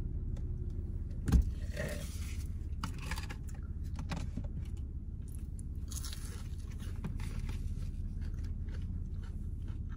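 Eating sounds in a car cabin: chewing and the scrape and crackle of fast-food wrappers and packaging, with one sharp knock about a second in, over a steady low hum inside the car.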